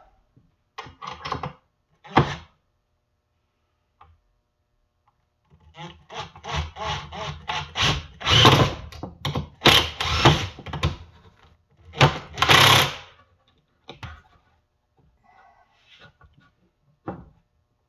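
Makita 18V cordless drill driving screws into a wooden frame joint, running in a series of short trigger bursts with the three loudest runs about 8½, 10 and 12½ seconds in. A few short clicks of handling come in the first couple of seconds.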